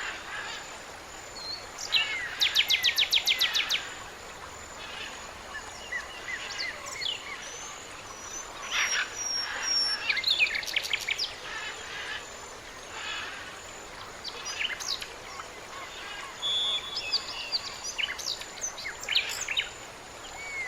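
Several small birds singing and calling: quick trills of rapidly repeated notes about two and a half seconds in and again around ten seconds, with short whistled notes in between. A faint steady high-pitched tone sits underneath.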